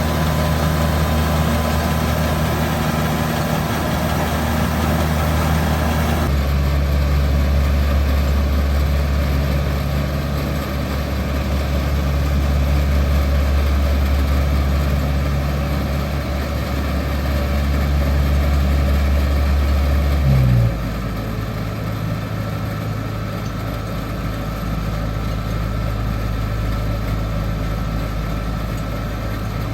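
Kubota rice combine harvester's engine running steadily. The sound shifts abruptly about six seconds in. A little past twenty seconds in, the note jumps briefly, then drops to a lower, slightly quieter steady running speed.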